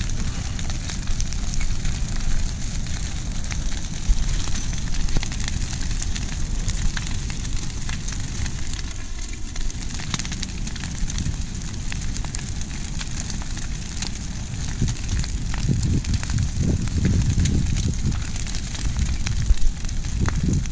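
Brush pile of dry tree limbs burning, with frequent sharp crackles and pops over a steady low rush. The low rush swells from about three quarters of the way through.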